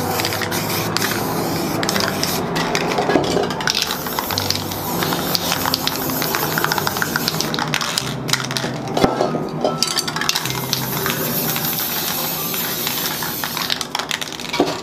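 Aerosol spray paint cans hissing as paint is sprayed onto a board. The hiss breaks off for about two seconds a little past halfway, then resumes, and stops near the end. Light clicks of cans and tools are heard along with the spraying.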